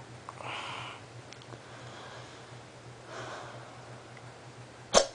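A person's quiet breathing, then a single sharp, loud hiccup near the end.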